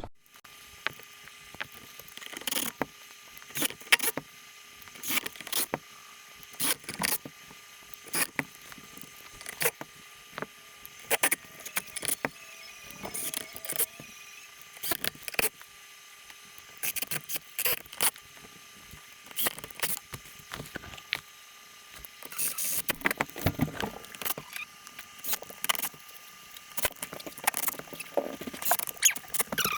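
Irregular sharp clicks and clinks of small metal screws and tools being handled on an RC car chassis as the screws are taken out and refitted, with a busier run of clicking about two-thirds of the way through.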